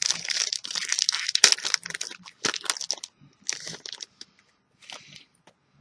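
Trading card booster-pack wrapper crinkling and crackling as it is handled and crumpled, dense for about the first three seconds, then a few scattered rustles.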